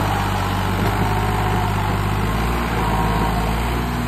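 Farm tractor diesel engines running steadily, a low engine drone with a slight change in the engine note about halfway through.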